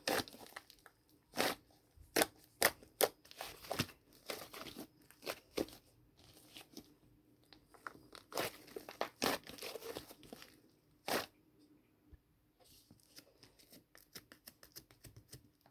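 Dried white cheese clay being squeezed and broken apart by hand: irregular crunches and crackles, growing smaller and sparser near the end.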